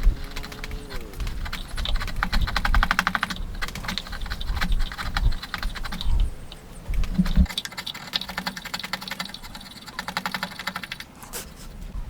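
Hand saw cutting wood in runs of quick strokes, each stroke a fast, even rasp of the teeth, with a few dull knocks in between.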